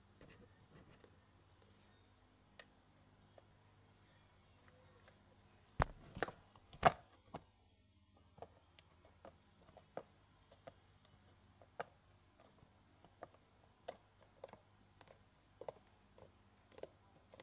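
Pink homemade slime being pressed and poked with fingers on a plastic plate, giving small sticky clicks and pops. A louder cluster of pops comes about six seconds in, followed by a run of soft clicks about twice a second.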